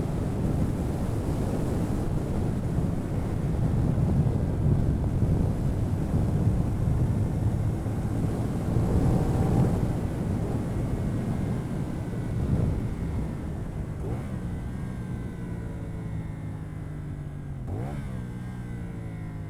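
CF Moto 450NK parallel-twin engine on its stock exhaust, heard from onboard at speed and largely buried under wind noise. In the last few seconds the wind eases and the engine note falls steadily as the bike slows, with one brief rise in revs near the end.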